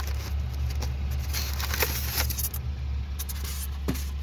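Packaging being handled as ceiling fan parts are lifted from the box: rustling and scraping for about a second mid-way, with a short knock near the end, over a steady low hum.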